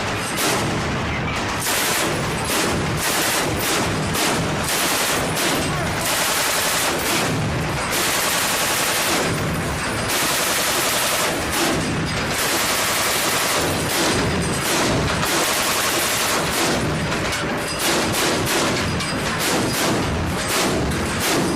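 Mk 38 mount's 25 mm M242 Bushmaster chain gun firing in repeated bursts, some of them long, with the shots running close together.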